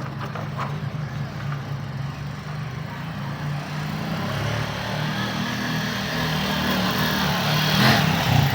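Keeway RKV 200 motorcycle's single-cylinder engine running steadily as the bike rides back toward the listener, growing gradually louder as it approaches.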